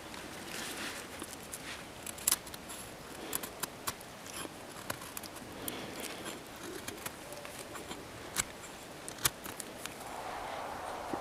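Knife shaving thin curls off a stick of dry wood to make feather sticks: soft scraping strokes with scattered sharp clicks.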